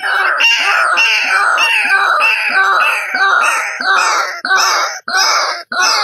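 White-breasted waterhen calling: a loud, rapid run of harsh repeated croaking notes, breaking off briefly a few times after the middle.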